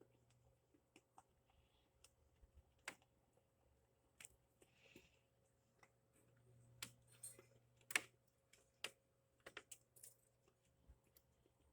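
Deer crunching corn kernels: faint, scattered sharp clicks and crunches at an uneven pace, the loudest about eight seconds in, with a few soft hissy puffs between them.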